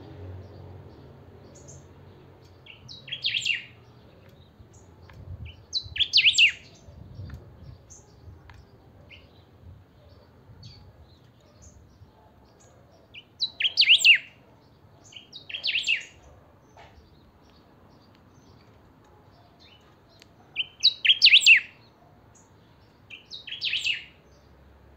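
Caged picahueso singing six short, loud song phrases a few seconds apart, with faint single chirps between them.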